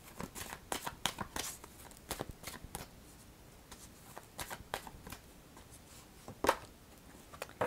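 Tarot cards being shuffled: a quick run of card flicks and rustles over the first few seconds, then a few scattered taps, the sharpest about six and a half seconds in.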